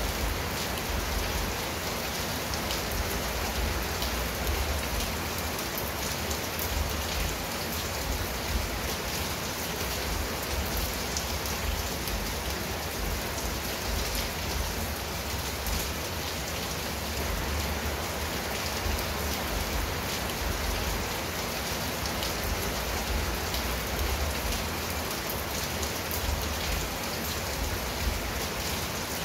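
Steady rain falling on a clay-tiled roof and leafy shrubs, an even hiss of many drops that holds without a break.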